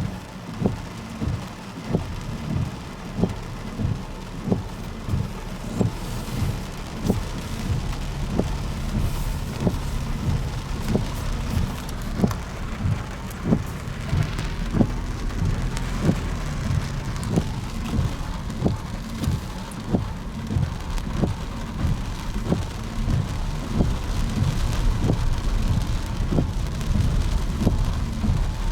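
Footsteps at a steady walking pace, about two a second, over a steady low rumble.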